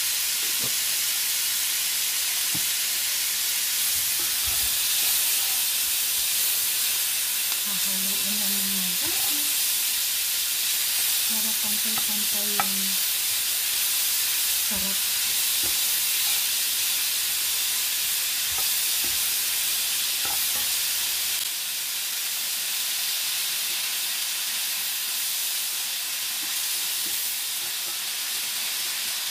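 Sliced steak, bell peppers and onions sizzling in a cast-iron skillet, with a steady high hiss, while a wooden spoon stirs them, giving occasional taps and scrapes against the pan. The sizzle drops slightly in level about two-thirds of the way through.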